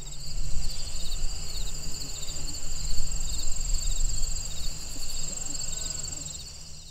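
Evening chorus of insects such as crickets, a steady high trilling made of several overlapping pitched layers, over a low rumble. It fades out near the end.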